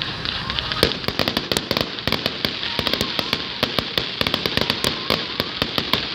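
Fireworks display: a rapid, dense crackle of firework shells and crackling stars bursting, with one louder bang about a second in, over a steady hiss.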